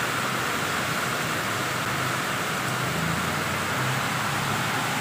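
A steady, even hiss of workshop background noise with no distinct knocks or clicks.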